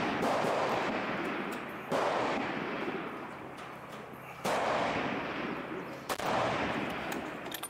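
F-Class target rifles firing at a 1,000-yard match: three sharp shots, about two and a half and then one and a half seconds apart. Each is followed by a long rolling echo that fades over a second or two. The echo of an earlier shot is still dying away at the start.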